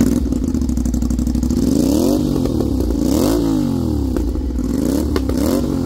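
Aprilia RS 457 parallel-twin engine running through an aftermarket carbon slip-on muffler with a mesh end cap, idling and revved in three throttle blips, the first about two seconds in.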